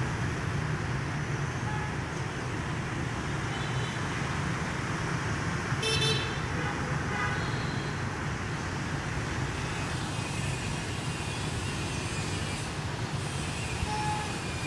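Steady street traffic from a stream of motorbikes and cars passing below, with scattered short horn toots; the loudest is a brief horn blast about six seconds in.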